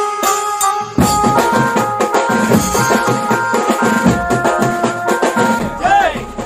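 Background music: a melodic tune that is joined about a second in by a driving drum and percussion beat, with sliding pitch bends near the end.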